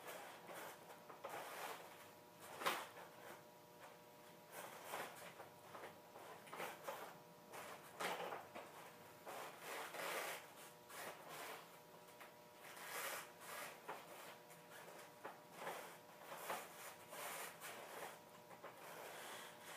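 Irregular soft creaks, rubs and scuffs from a trials motorcycle as the rider holds it balanced at a standstill: suspension, tyres on concrete and boots shifting on the pegs. The sounds are quiet and come every second or so.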